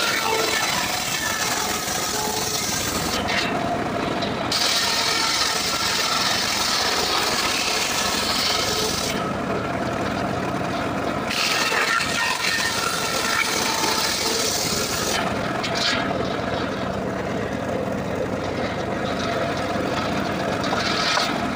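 Homemade circular saw bench ripping dry acacia wood lengthwise: the machine runs steadily under the hiss of the blade cutting. The cutting sound eases off several times for a second or more between passes.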